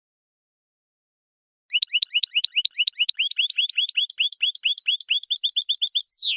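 European goldfinch song: after a silent start, a fast run of repeated high chirping notes begins about two seconds in, at about eight notes a second, quickening near the end and closing with a falling whistle.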